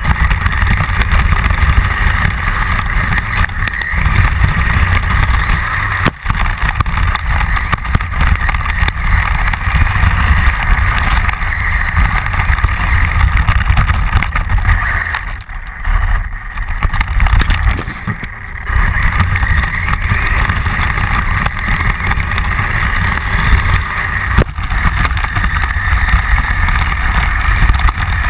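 A motor vehicle's engine running steadily, with a heavy low rumble. It eases off briefly twice, around the middle.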